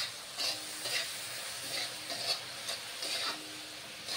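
Metal spatula scraping and stirring pork pieces in soy sauce around a wok, about two strokes a second, over the steady sizzle of the meat frying.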